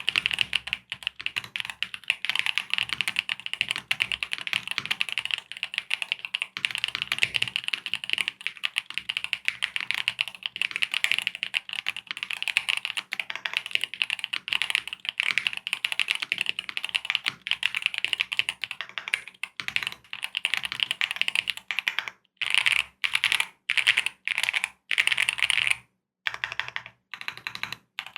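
Typing on a YUNZII AL65 CNC-aluminium 65% mechanical keyboard with Gateron Zero linear switches and PBT keycaps: fast, continuous keystroke clatter. In the last few seconds it breaks into short separate bursts with brief pauses.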